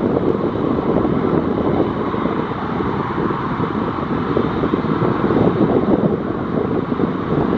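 Wind buffeting the microphone over the steady rumble of a Boeing 737 MAX 8's CFM LEAP-1B jet engines at taxi power.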